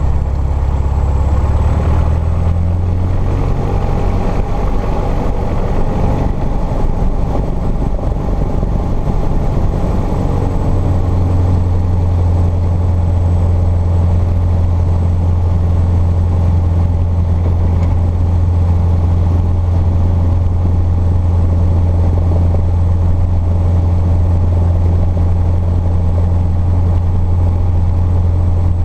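Cessna 150's Continental O-200 four-cylinder engine and propeller running at low taxi power, heard loud from inside the cabin. The engine note shifts a little in the first ten seconds, then holds steady.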